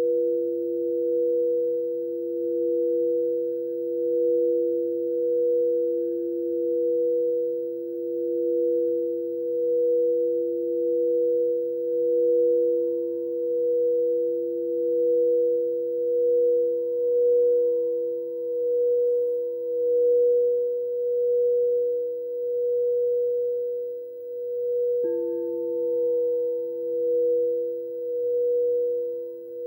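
Two frosted quartz crystal singing bowls played together by rubbing mallets around their rims, holding two steady overlapping tones, one lower and one higher, with a slow swelling wobble. About 25 seconds in, the lower tone briefly breaks and a faint higher tone joins.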